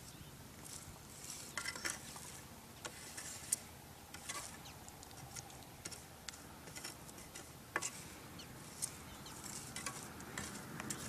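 Hands slapping, patting and scraping wet yak dung into cakes on a wall, drying them for fuel: soft irregular pats and scrapes, with a few sharper clicks.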